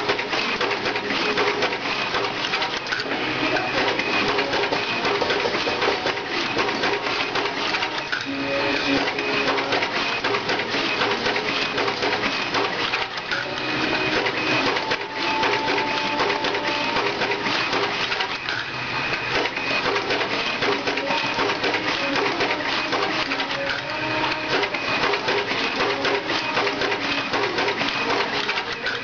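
Full-automatic business card cutter running at high speed, feeding card sheets through its slitting and cutting blades with a steady, dense clatter of rapid clicks.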